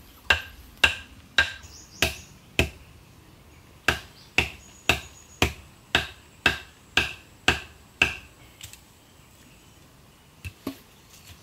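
Sharp wood-on-wood knocks of a stake being hammered into the ground. Five blows come about two a second, then a short pause, then nine more at the same pace, followed near the end by a couple of faint taps.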